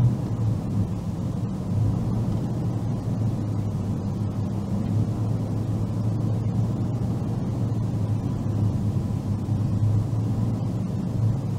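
A car driving at steady speed on a paved road, heard inside the cabin: a low, even rumble of engine and tyre noise.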